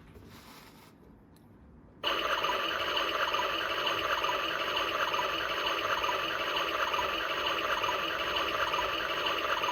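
A mini toy washing machine's small electric motor switches on about two seconds in and runs steadily.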